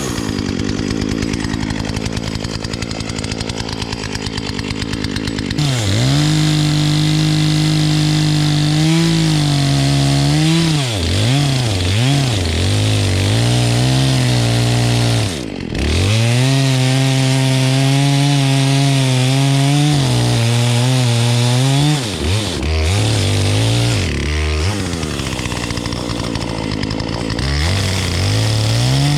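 Two-stroke chainsaw dropping from speed to a low run for the first few seconds, then held at high throttle from about six seconds in while cutting wood. Its pitch sags and recovers repeatedly as the chain loads up in the cut, with a brief drop near the middle.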